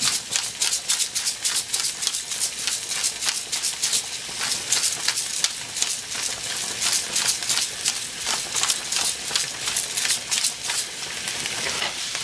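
Hand pepper grinder being twisted over a pan, a rapid run of crunchy clicks as peppercorns are ground, dying away near the end.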